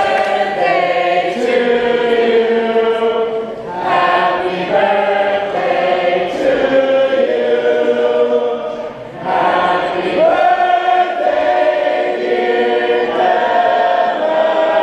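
An a cappella vocal group singing in close harmony, holding sustained chords, with brief breaks between phrases about 4 and 9 seconds in.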